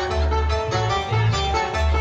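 Live Javanese band music, an instrumental passage: a steady, pulsing low beat of kendang drum and bass under plucked-string and melodic lines.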